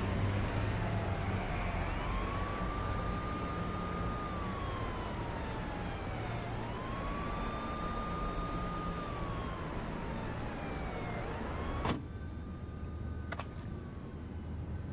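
Wailing emergency-vehicle siren rising quickly, holding, then falling slowly, in cycles about every four and a half seconds over a steady low rumble. It cuts off abruptly about twelve seconds in, and a single sharp click follows soon after.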